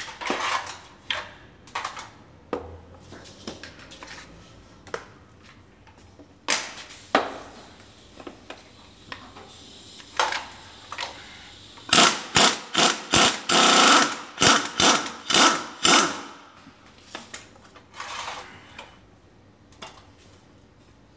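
Pneumatic impact wrench hammering in short bursts on a Suzuki TL1000R front fork, a fast run of about ten bursts over four seconds midway, with a few single bursts before it. Metal parts of the fork clink and knock between bursts.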